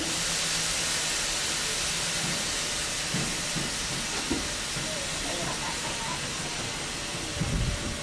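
Steady rushing hiss of wind and running noise from a moving passenger train, heard aboard; it cuts in suddenly, and there are a few low thumps of wind on the microphone near the end.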